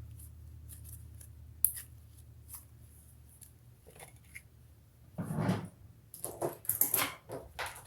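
Sticky clicks and crackles of a stiff homemade slime being stretched and squeezed by hand: a few scattered snaps at first, then a denser run of crackling and squishing over the last three seconds.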